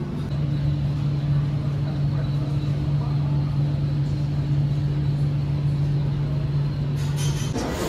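Airport departure-gate background: a steady low machine hum over an even background din. The hum cuts off shortly before the end.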